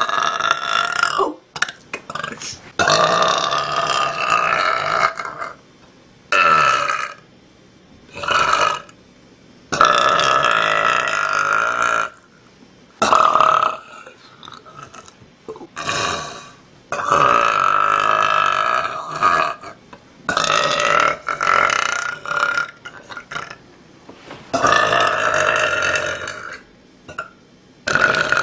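A young woman belching over and over: about ten long, pitched belches in a row, several drawn out for two to three seconds, with short pauses between them.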